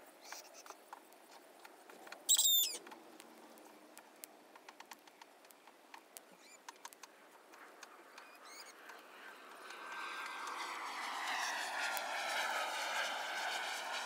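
Smouldering heap of dry weeds giving off faint, scattered crackles. About two seconds in a bird gives a sharp burst of several quick high notes, the loudest sound, with a few fainter chirps later. Over the last few seconds the rush of a passing vehicle swells.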